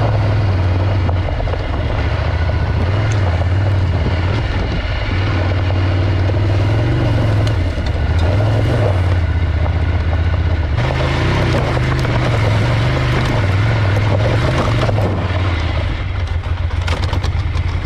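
Ducati Scrambler Desert Sled motorcycle engine running loud under the rider, revs rising and falling several times as it is ridden.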